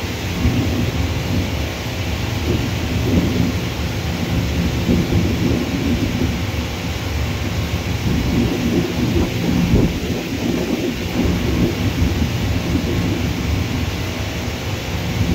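Jet airliner's engines giving a steady, low rumbling roar as it rolls along the runway.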